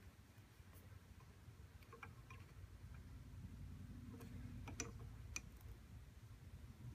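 A few faint clicks from the cross-slide handwheel and leadscrew of a small Harbor Freight lathe-mill as the handwheel is rocked back and forth: the play being taken up, the sign of backlash (slop) in the cross-slide. Two clicks come about two seconds in and three more between four and five and a half seconds.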